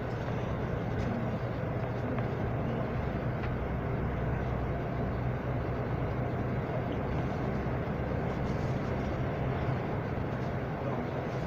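Steady rumble of a moving vehicle, with a low, even hum under road and wind noise.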